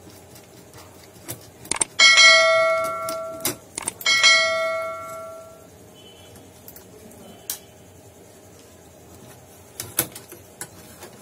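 Two bell-like metallic rings about two seconds apart, each struck sharply and fading out over a second and a half, with a few light clicks before and after.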